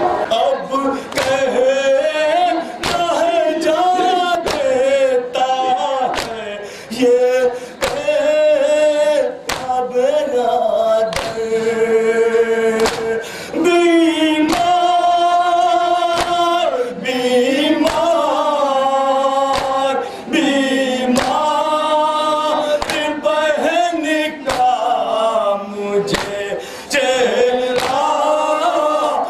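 Male voices chanting a nauha, a Shia mourning lament for Muharram, a lead reciter on a microphone with the group joining in, over sharp beats about one to two a second, in the manner of matam chest-beating keeping time.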